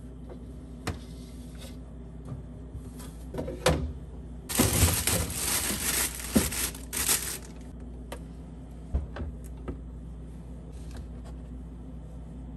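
Items being put back on a refrigerator shelf: a few light knocks and clicks, and a stretch of plastic bag rustling around the middle as a plastic-wrapped bundle is set in place. A steady low hum runs underneath.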